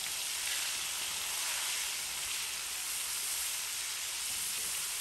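Hot oil sizzling steadily in a pan as chopped tomatoes, green seasoning and tomato paste fry, their water cooking off.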